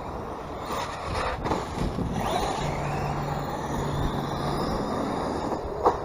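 HPI Savage Flux electric RC monster truck running, its brushless motor whining up in pitch as it accelerates about two seconds in, over steady wind and tyre noise. There is a single sharp click near the end.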